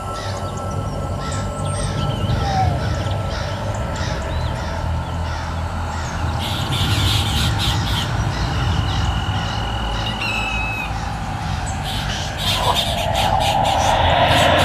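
Horror ambience sound effect: a steady low drone with bird squawks and bursts of rapid high clicking over it, and a rushing noise swelling near the end.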